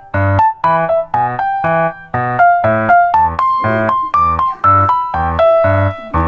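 Music: a bright electronic-keyboard melody of short notes over a steady low beat.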